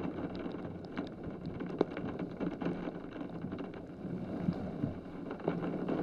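Heavy rain falling steadily, with scattered sharp taps of drops striking close by.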